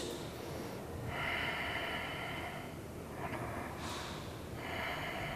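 A woman breathing audibly and slowly while holding a yoga pose: two long breaths of about a second and a half each, with a shorter, fainter one between them.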